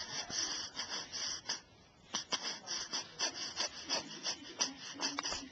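Scratchy rubbing on the microphone, a quick run of short rasping strokes, about three a second, with a brief pause about two seconds in.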